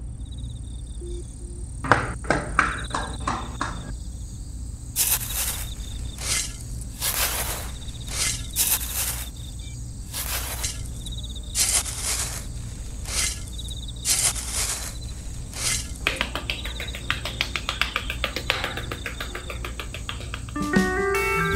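Small metal trowel scooping and scraping damp sand, short gritty scrapes about once a second, coming faster near the end. Behind it runs a steady faint cricket-like chirring.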